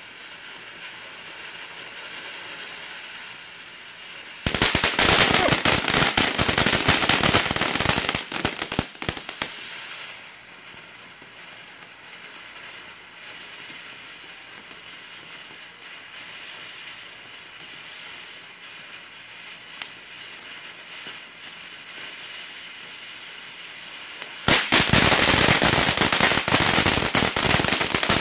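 TNT Frenzied Fireflies fountain firework hissing steadily as it sprays sparks. Twice it breaks into loud, dense crackling: about four seconds in for some five seconds, and again near the end.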